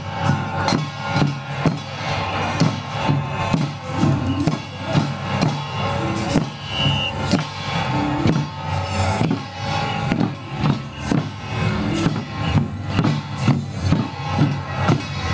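Taiwanese flower-drum (huagu) troupe playing: small hand drums and brass cymbals struck together in a steady beat of about two strikes a second, with a melody running over it.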